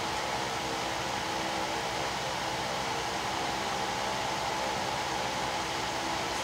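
Hot air rework station blowing steadily, a constant airy hiss with a faint fan hum, as it heats a Galaxy S4 motherboard to solder on a replacement power IC.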